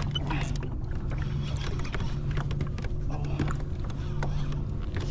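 Fishing reel being worked against a hooked salmon pulling drag: scattered short clicks and taps over a steady low hum that swells and fades about once a second.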